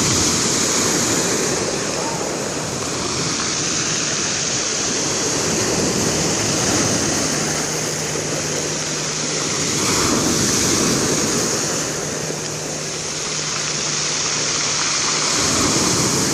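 Sea waves breaking on the shore, the surf swelling and easing about every five seconds. A faint steady hum joins about halfway through and stops shortly before the end.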